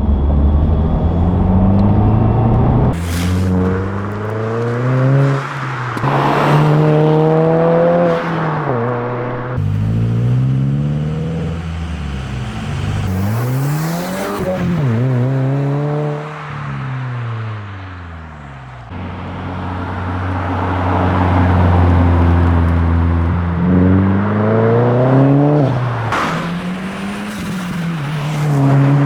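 Exhaust of a 2022 Subaru WRX (VB) with its turbocharged 2.4-litre flat-four, revved again and again from idle, the note climbing and dropping back each time, in several short clips joined by abrupt cuts. Near the end a longer rev climbs higher.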